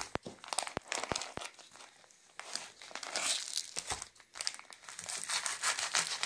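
Thin plastic food packaging crinkling and rustling as fingers work it open, with a few sharp clicks in the first second and a half.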